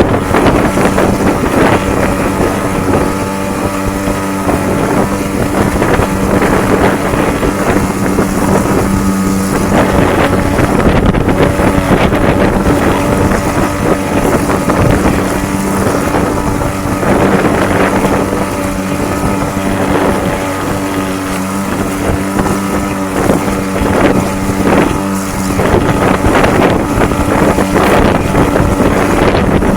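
A small boat motor running with a steady hum, under heavy wind buffeting on the microphone.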